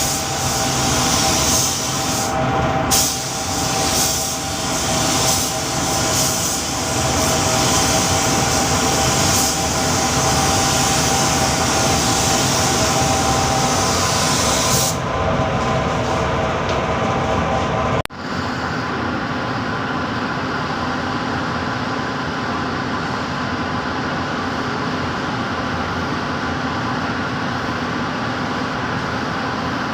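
Steady machine noise with a strong hiss, the hiss falling away about halfway through. There is a sudden break a few seconds later, followed by a steadier, duller running noise.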